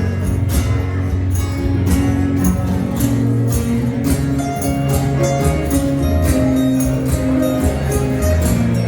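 Live acoustic band playing an instrumental passage: strummed acoustic guitar over a steady beat of sharp percussion hits about twice a second.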